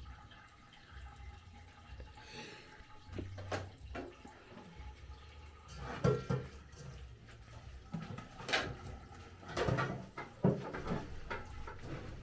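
Chopped leafy greens being washed by hand in water: irregular sloshing and splashing, with several louder splashes in the second half.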